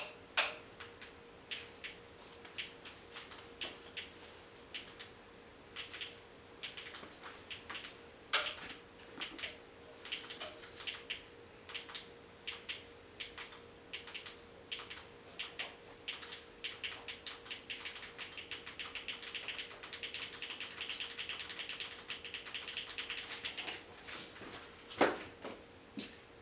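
Scattered small taps and clicks, then a dense run of quick clicking for several seconds late on and one louder knock near the end, over a faint steady hum.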